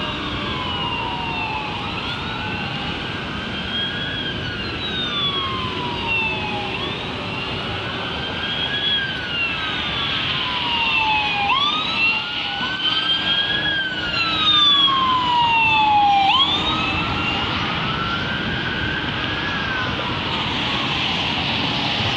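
Two or more emergency-vehicle sirens wailing at once, their slow rising and falling sweeps overlapping out of step and loudest a little past the middle. They stop after about sixteen seconds, leaving a steady background of city traffic noise.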